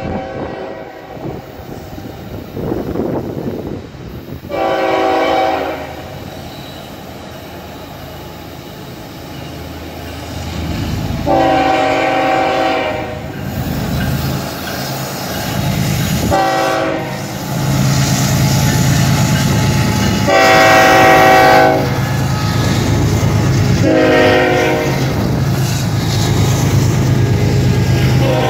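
Florida East Coast Railway diesel freight locomotive sounding its air horn as it approaches and crosses a road crossing: long, long, short, long, the grade-crossing signal, followed by two more blasts near the end. The deep rumble of the locomotive's diesel engine and the rolling freight cars grows louder as it draws near and passes.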